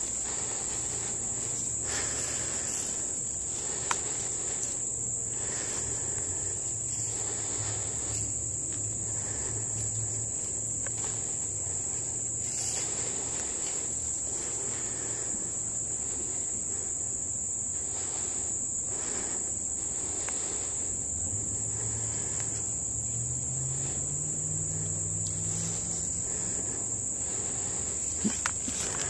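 Steady, high-pitched insect chorus in leafy woods, with faint rustles and a low hum underneath.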